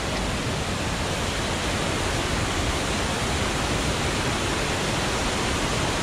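Waterfall cascade, water rushing steadily over rocks.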